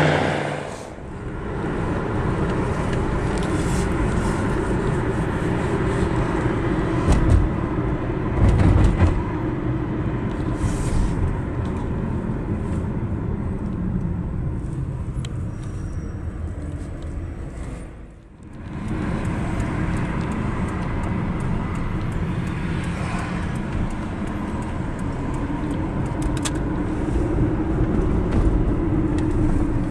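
Steady road and engine noise inside a moving car's cabin, with a few louder low thuds about seven to nine seconds in and two brief dips in level, about a second in and around eighteen seconds in.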